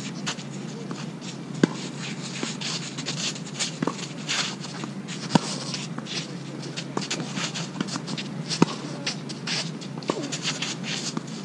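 Tennis rally: sharp racket-on-ball strikes about three to four seconds apart, with fainter shots from the far end of the court, over continual scuffing and shuffling of tennis shoes on the court surface.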